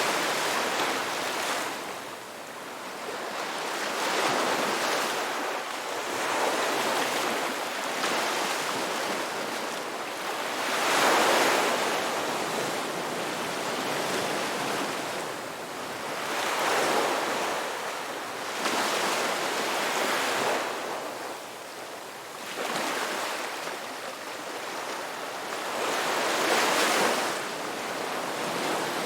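Ocean waves breaking and washing on the shore, a steady rush of surf that swells and fades with each wave every few seconds.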